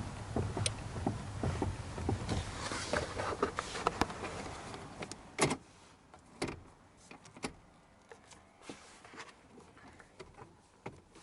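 Knocking and clicking from the front suspension and steering of a 2008 Mitsubishi Lancer X, with low road rumble for the first four seconds or so, then fading to scattered single knocks, the loudest about five seconds in. This is the knock the owner hears over bumps in a turn, which he suspects comes from the steering rack or its tie rods.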